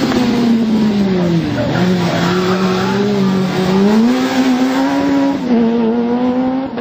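Fiat Punto 1600 rally car's four-cylinder engine revving hard through a tight turn. The engine note dips about a second and a half in and climbs again around three seconds in, then holds high.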